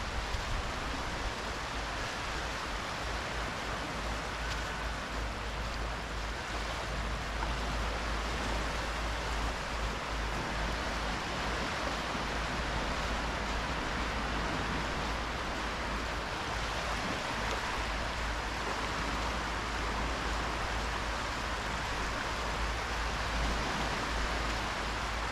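Small sea waves washing in at the shoreline: a steady rush of gentle surf, with a low, unsteady rumble underneath.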